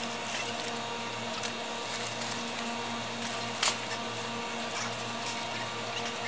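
Steady low electrical hum of indoor ambience, with one sharp knock about three and a half seconds in as a boy climbs onto the metal wire shelving.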